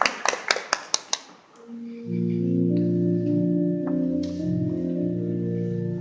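Audience applause dies away about a second in. Then sustained organ-like chords begin, held steadily and changing every second or so: an instrumental accompaniment starting up.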